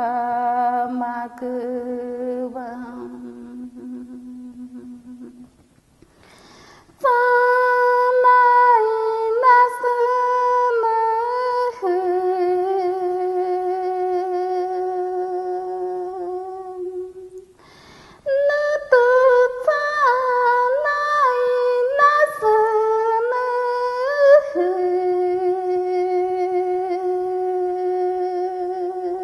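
A woman's solo voice singing an ayahuasca icaro in long, held melodic notes. The first phrase trails off about five seconds in. After a short pause a new phrase begins, and it ends on a long low held note. A third phrase follows another brief break near the middle and also ends on a long held note.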